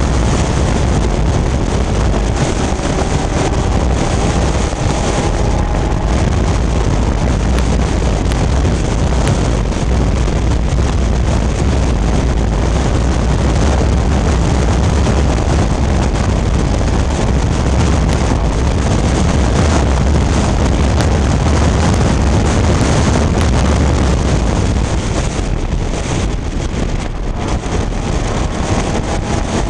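Vintage Fiat race car's engine running at racing speed, heard from inside the cockpit with heavy wind buffeting on the microphone. The engine note rises and falls faintly under the wind.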